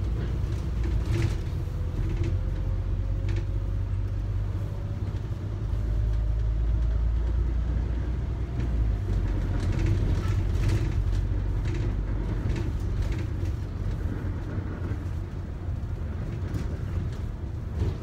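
Inside a moving London double-decker bus: a steady low rumble of engine and road, with a faint whine rising in pitch over the first few seconds and a few brief knocks.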